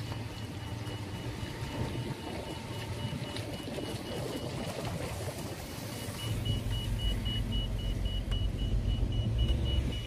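Car on a rain-wet road heard from inside the cabin: engine and tyre noise, with a low rumble that grows louder about six seconds in. A faint high beep repeats about three or four times a second.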